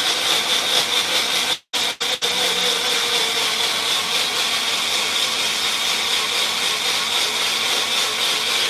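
Bullet-style personal blender motor running at full speed, pureeing cooked onion and yogurt into a paste. It cuts out briefly twice about two seconds in as the cup is let up, then runs on steadily.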